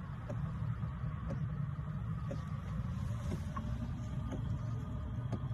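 Diesel heater running: a steady blower-fan hum, with its fuel dosing pump ticking about once a second.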